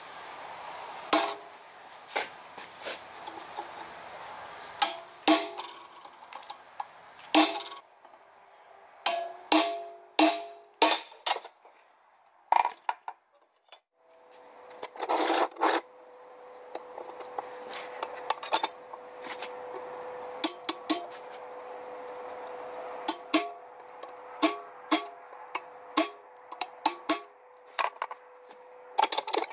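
Blacksmith's hammer striking hot steel and anvil in irregular blows, each with a short metallic ring. About halfway through, a steady hum starts under the strikes.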